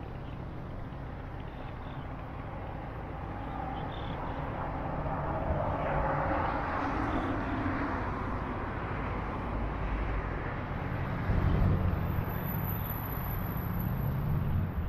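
Steady road traffic noise from a busy multi-lane highway, swelling as vehicles pass about six seconds in, with a deeper rumble near the end.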